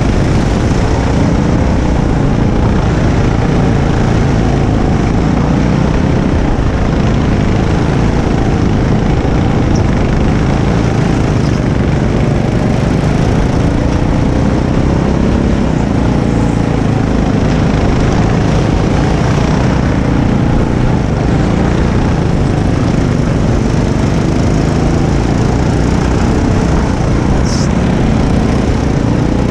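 Go-kart's small engine running hard under the driver, its pitch rising and falling as the kart speeds up and slows through the corners.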